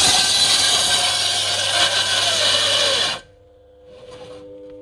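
Table saw's circular blade ripping through a thick slab of palm wood, a loud rasping whine of blade in wood. It cuts off abruptly about three seconds in, leaving a much quieter steady hum.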